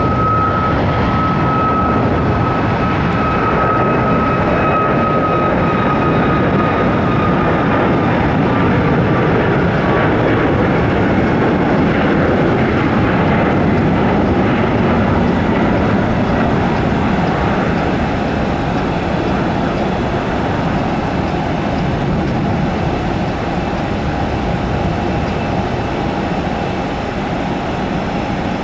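Boeing 737-8 MAX's CFM LEAP-1B turbofans at take-off power, a steady loud jet noise with a high whine that slowly drops in pitch over the first ten seconds. The noise eases slightly in the last third.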